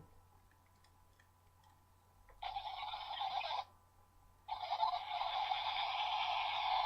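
Power Rangers Time Force morpher toy playing electronic sound effects through its small speaker: a short burst about two and a half seconds in, then a longer one starting about a second later.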